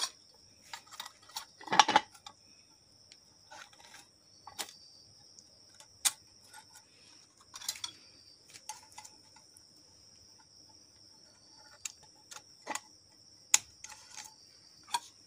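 Light, irregular metallic clicks and clinks as steel piston rings are handled and sprung into the grooves of a diesel engine piston, the loudest about two seconds in.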